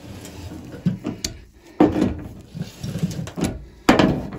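Metal clanks and scraping from a breaker bar and tub drain extractor being worked in an old brass bathtub drain, with several sharp knocks, the loudest about two seconds in and near the end.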